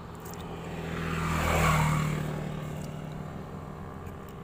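A motor engine passing by: a steady engine hum and rushing noise swelling to a peak about a second and a half in, then slowly fading away.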